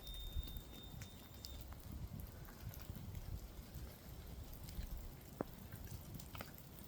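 A steady high electronic tone from ghost-hunting detector equipment that has been triggered, cutting off about a second and a half in, over a low rumble with a few faint clicks.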